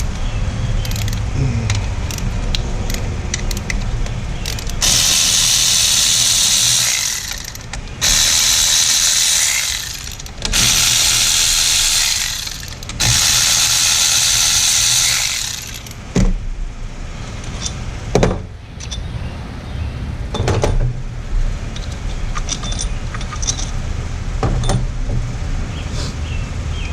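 A power tool running in four bursts of about two seconds each, spinning out the 15 mm bolts just broken loose on the A/C lines. Afterward, scattered metal clicks and knocks as parts are handled.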